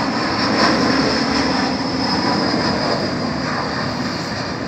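Airbus A321 airliner's jet engines heard from below as it passes low on approach to land, gear down: a loud, steady rumble with a high whine that sinks slightly in pitch, easing off a little near the end.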